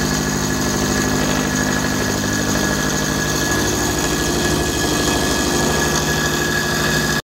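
Milling machine running as an end mill cuts across the top of a welded steel tube: a steady machine hum with a high whine, stopping abruptly at the very end.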